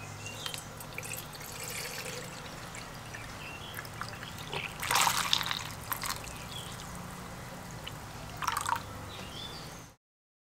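White vinegar poured from a plastic bottle into a plastic tub over a tarnished kerosene stove fuel tank, splashing and trickling unevenly. The loudest gush comes about five seconds in, with a shorter splash later. The sound cuts off suddenly near the end.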